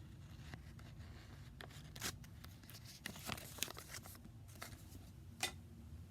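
Rustling and scattered light clicks of objects being handled, with one sharper click about five and a half seconds in.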